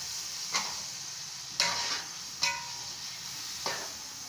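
A perforated metal spoon stirring chicken in a large aluminium pot of sizzling masala. It knocks and scrapes against the pot four times, the pot ringing briefly after some strikes, over a steady sizzle.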